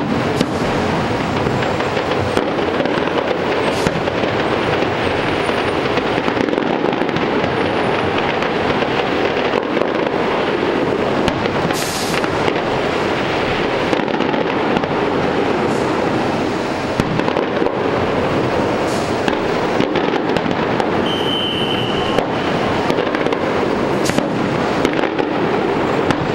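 Fireworks going off in a continuous barrage: a dense, steady crackle with many sharp pops and bangs throughout.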